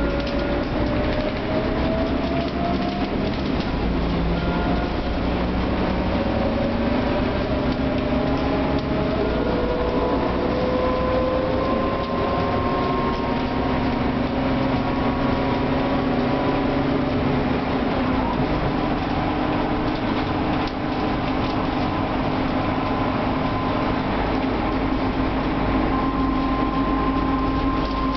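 Mercedes-Benz O500LE city bus heard from inside the cabin: diesel engine and six-speed ZF automatic gearbox under way. A whine climbs in pitch and drops back several times as the gearbox shifts up, then holds steadier near the end.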